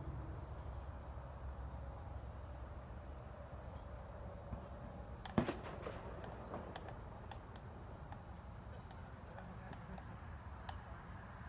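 Distant fireworks: one sharp pop about five seconds in, followed by a few seconds of scattered smaller cracks and crackles. Faint high cricket chirps, roughly one a second, run underneath.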